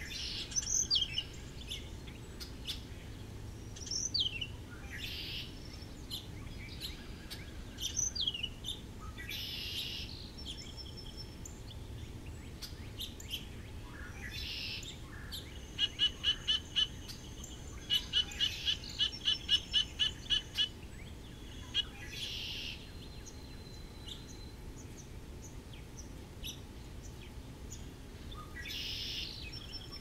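Backyard songbirds calling: a few sharp, down-slurred whistles in the first ten seconds, then a run of quick repeated notes, about four a second, for several seconds midway.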